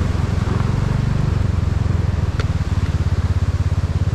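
Motorcycle engine running at low revs, settling into an idle with a fast, even pulsing in its second half; a single short click about halfway through.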